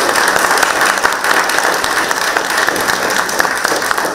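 A group of about twenty people clapping and applauding steadily.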